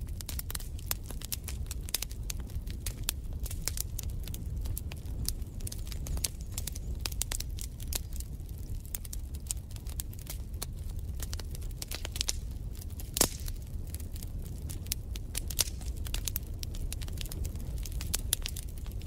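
Wood fire crackling in a fireplace: irregular pops and snaps over a low rumble, with one louder pop about thirteen seconds in.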